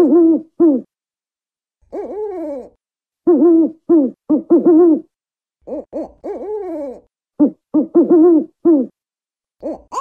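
African wood owl hooting: quick runs of hoots, several sliding down in pitch, in bouts of one to two seconds with short pauses between.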